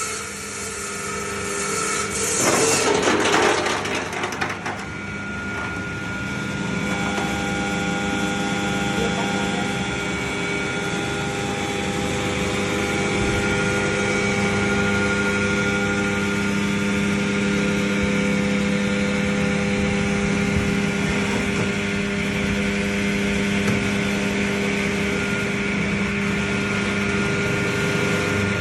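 Electric ice-block cutting machine with twelve saw blades running steadily with a humming whine, with a louder harsh burst of noise about two to four seconds in.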